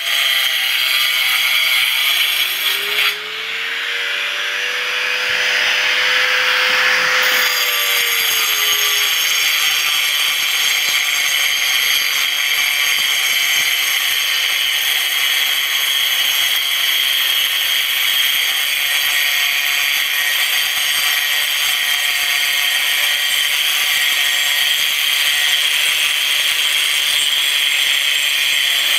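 Handheld electric angle grinder cutting grout between floor tiles: a steady, loud high whine with a grinding rasp. About three seconds in the sound briefly drops, and its pitch bends up and back down before it settles into the cut again.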